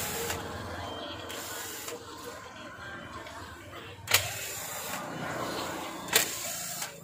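Cordless screwdriver running against a screw in an electric planer's housing, with two sharp knocks about four and six seconds in.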